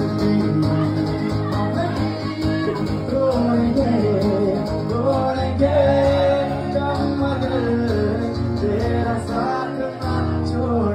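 Live acoustic guitar accompanying a man singing a Hindi song into a microphone, with the voice carrying a wavering melody over the strummed chords.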